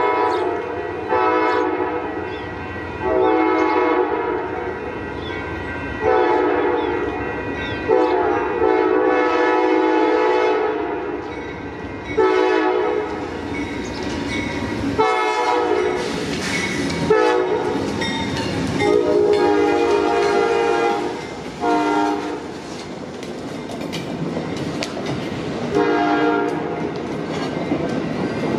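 An Amtrak diesel locomotive's air horn sounds a long string of blasts, long and short, each a chord of several notes, as the train approaches. Underneath, the locomotive and the passing Talgo 6 passenger cars rumble along the rails with their wheels clicking.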